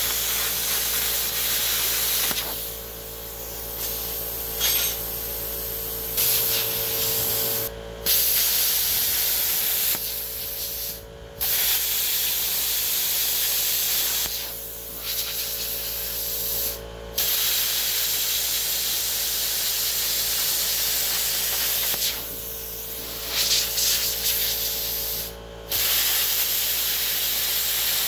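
Handheld plasma cutter cutting through steel plate: a loud, steady hiss of air and arc over a steady hum. It cuts out briefly four times and restarts.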